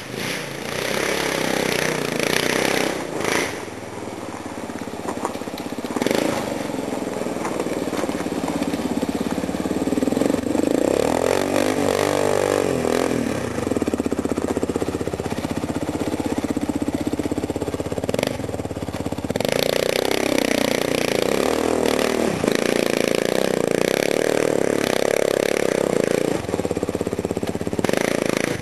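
Kawasaki KLF400 quad's single-cylinder four-stroke engine revving up and down as it is ridden, its pitch rising and falling repeatedly.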